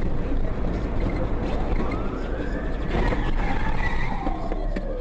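A siren's slow wail: its pitch climbs from about two seconds in, then falls away toward the end. Under it runs a moving car's steady engine and road rumble.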